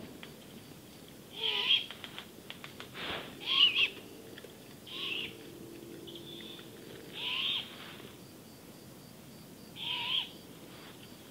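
Great horned owl giving harsh, raspy screech calls, five in all, about every two to three seconds. These are the hissing begging screeches of a young owl.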